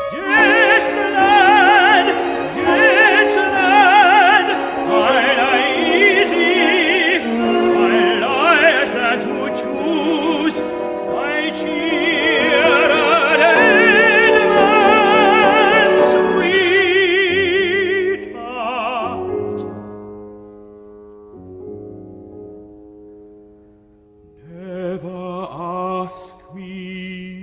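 Operatic singing with heavy vibrato over sustained accompaniment. About two-thirds of the way through it drops to a softer, sparser passage, swelling briefly near the end.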